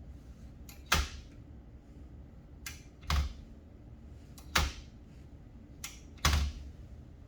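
Brother Charger 11 manual typewriter working slowly: four loud mechanical clacks spaced a second and a half to two seconds apart, each preceded by a fainter click.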